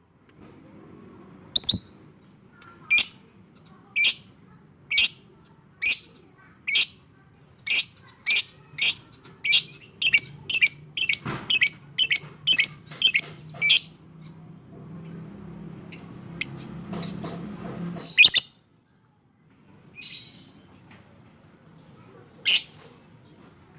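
Lovebird calling in short, shrill, sharp notes, spaced about a second apart at first. They quicken into a rapid run of two or three a second, then break off, and a few single calls follow later. This is the lovebird's 'ngekek' cackling song.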